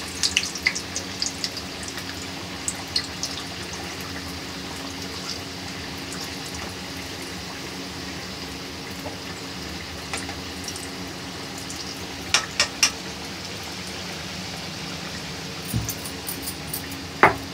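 Samosas deep-frying in hot oil in an aluminium kadhai: a steady sizzle as they are turned until golden brown. A metal spoon clicks against the pan several times in the first couple of seconds, twice about twelve seconds in, and once near the end.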